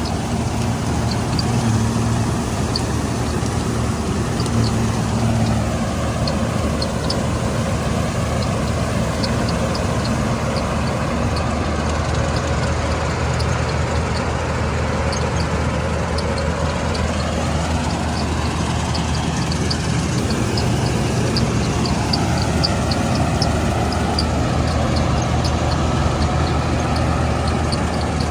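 Combine harvester's diesel engine running steadily, with a whine that slowly rises and falls and a light rapid ticking from the machinery.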